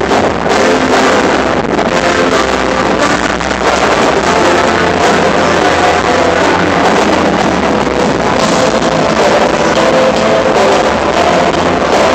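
Loud live show music over an arena sound system, with long held notes throughout.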